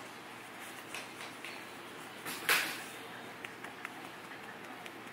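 A hand softly patting a small dog's furry back, heard as a few faint taps, with one short rush of rustling noise about two and a half seconds in.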